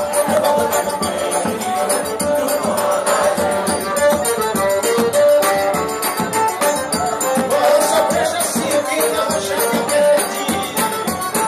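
Live forró trio playing: an accordion melody of held notes over a fast, steady triangle rhythm and zabumba drum beats.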